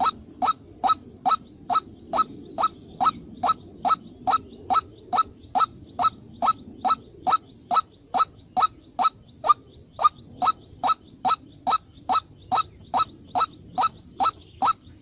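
A bird's short rising call note repeated very steadily, a little more than two calls a second, with no pause.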